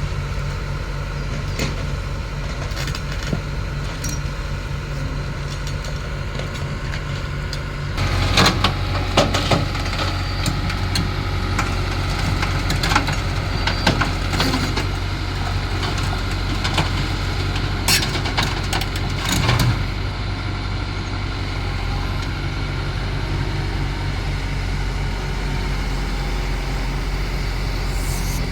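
Excavator's diesel engine running steadily. About eight seconds in it picks up under load, with a string of metallic clanks and knocks for some twelve seconds as it loads.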